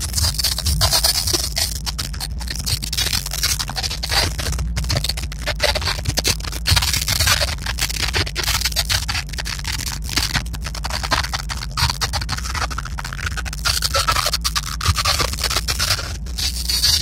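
Scraping and rubbing noise close to the microphone, full of short irregular clicks, over a steady low rumble: handling noise from the hand-held camera.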